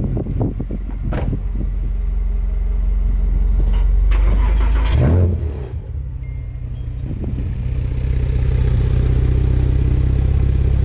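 Subaru WRX flat-four engine running: a steady low drone with a short burst and dip about five seconds in, then running on with an even pulsing.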